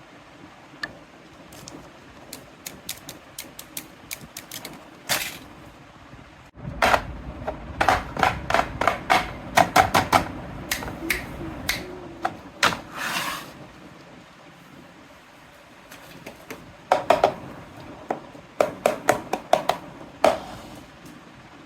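Pieces of a mini toy kitchen set being handled, clicking and clattering in quick runs of taps. The densest stretch comes about a third of the way in, with a low rumble under the clicks, and another run of taps comes near the end.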